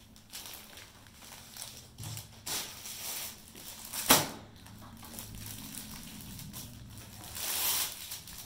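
Rustling and crinkling of a salwar suit's fabric being handled and unfolded, with a single sharp click about four seconds in and a louder rustle near the end.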